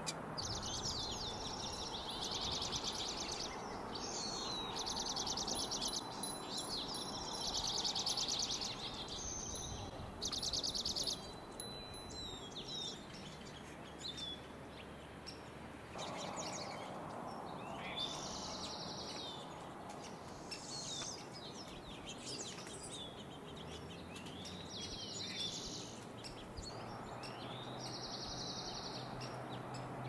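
A songbird singing a high, rapid trill over and over, each trill lasting one to two seconds and coming every few seconds, over a steady low background noise.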